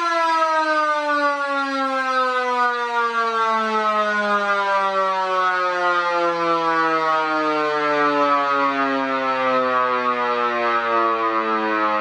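Two electromechanical sirens, a Vixen Horns VXS-1450 and a mini Fedelcode Model 7 on one switch, winding down together after the power is cut, their pitch falling slowly and steadily.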